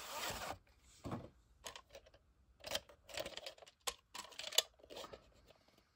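A VHS cassette being handled and slid out of its cardboard sleeve: irregular light clicks and scrapes of plastic against cardboard.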